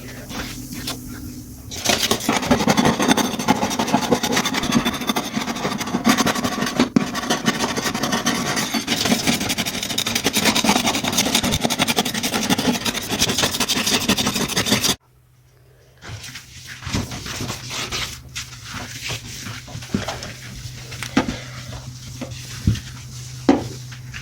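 Rapid, steady scrubbing of a surface during cleaning, lasting about thirteen seconds. It stops abruptly, leaving a low hum with scattered light clicks and knocks.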